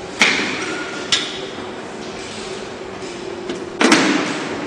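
Sharp knocks and clanks of LED display cabinets being fitted and locked together: one knock just after the start, another about a second in, and a louder, longer clatter near the end, over a faint steady hum.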